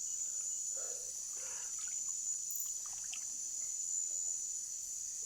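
Steady, high-pitched chorus of night insects, with faint murmurs of distant voices underneath.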